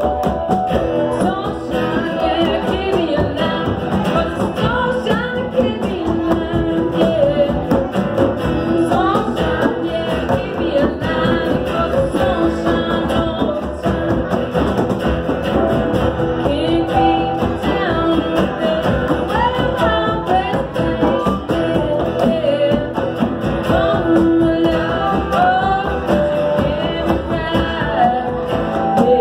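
Live acoustic band playing a song: a woman singing over strummed acoustic guitar, with electric guitar and a steady hand-played percussion beat on cajon and hand drum. Recorded on a smartphone microphone.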